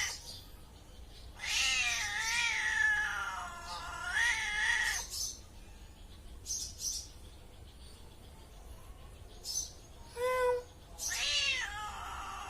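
Domestic cat meowing: one long, drawn-out, wavering yowl lasting about three and a half seconds, then after a pause two short meows near the end.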